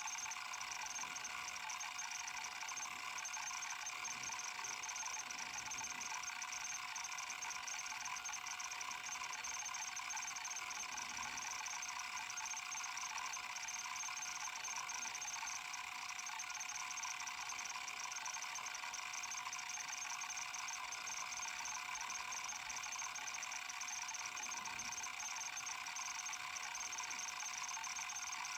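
Kalok KL3100 stepper-motor hard drive working continuously: a dense, rapid chatter of head-stepper seeks over a steady whine.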